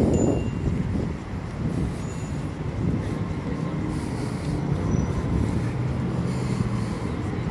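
City road traffic: vehicles driving past with a low rumble, and a steady low engine hum through the middle and later part.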